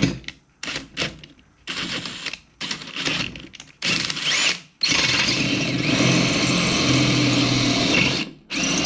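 DeWalt cordless drill boring a 5/16-inch hole into a cast-aluminium Powerglide transmission case. It runs in short bursts for the first few seconds, then runs steadily under load for about three seconds, stops briefly near the end and starts again.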